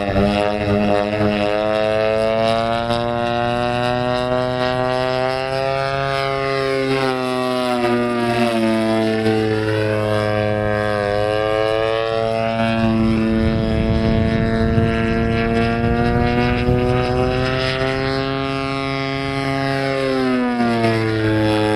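Gasoline engine and propeller of a giant-scale RC Yak 54 model aeroplane flying, a continuous buzzing drone whose pitch rises and falls as the throttle and the plane's distance change through the manoeuvres.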